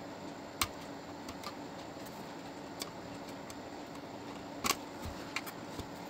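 Scattered small clicks and snaps of a floppy disk drive's plastic front bezel being pried loose with a screwdriver, the clips letting go. The sharpest is a close pair of clicks about two-thirds of the way through, over a faint steady hum.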